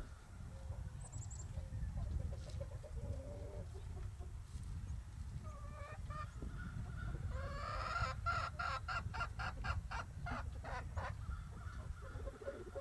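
Chickens clucking: a few scattered clucks, then about two-thirds of the way in a fast run of about a dozen clucks, about four a second. A steady low rumble lies underneath.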